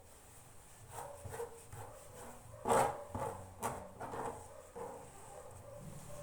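A dog barking several times, the loudest bark a little under three seconds in.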